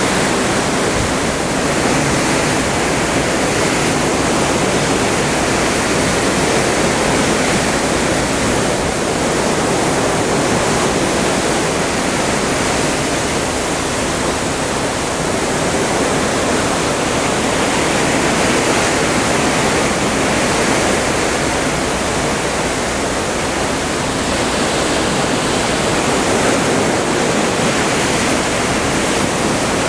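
Sea water rushing and hissing steadily past a moving ship, heard from on board, swelling and easing gently every several seconds.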